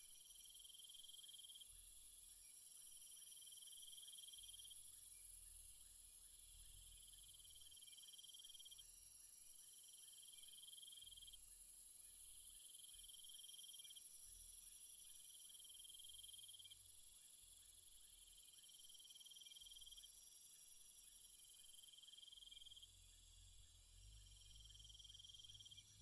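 Faint insects trilling: high, buzzy trills about a second long, one after another with short gaps, over a steady high hiss. A low rumble comes and goes underneath.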